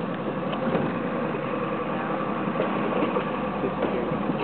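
Outboard motor of a Zodiac inflatable boat idling, a steady engine drone.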